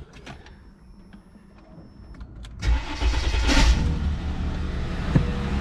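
2004 Mercedes ML350's M112 V6 engine being started: after a couple of seconds of quiet with a faint high whine, it cranks, catches with a brief flare of revs and settles into a steady idle. It is being run with Sea Foam just added to its dirty oil.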